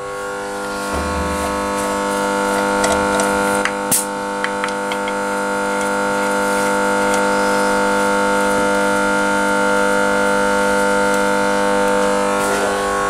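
A steady, held chord of background music that fades near the end, with a sharp click about four seconds in.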